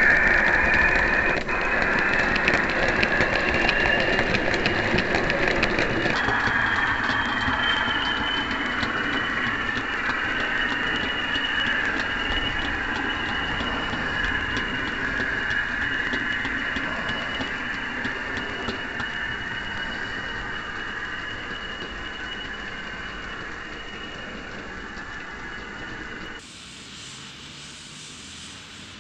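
4mm-scale model train running on the layout's track, with a steady high motor-and-gear whine over wheel rumble and fine clicking from the rails. It fades gradually and drops suddenly near the end.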